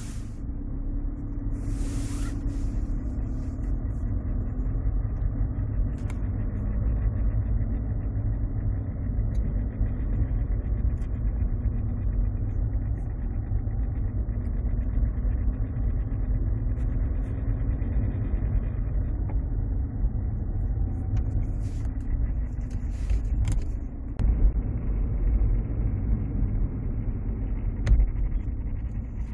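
Inside the cabin of a 2007 Mercedes-Benz C200 CDI, its four-cylinder diesel running with a steady low rumble and a droning tone that wavers up and down. This is the noise the owner hears from the automatic gearbox selector area of the 722.6 transmission at 2000 rpm and above, cause unknown.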